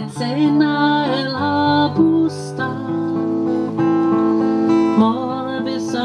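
Background music: a strummed and plucked acoustic guitar with a voice singing a slow melody over it.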